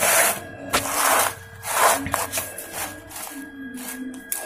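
Paper notebook pages being turned and smoothed by hand: several rustling sweeps of paper, strongest in the first two seconds.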